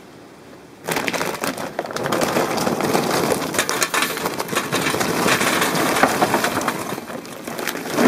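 Sheets of old newspaper being crumpled and scrunched by hand for lighting a charcoal chimney starter: a dense crackling rustle that starts about a second in.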